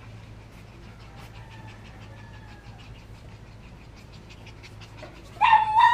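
Chow chow puppies playing, with faint rapid panting and a soft whine early on. Near the end a puppy gives one loud, high yelp lasting about half a second.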